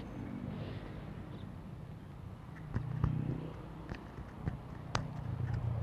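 A low engine hum, as of passing traffic, growing stronger twice, with a few sharp clicks about three and five seconds in.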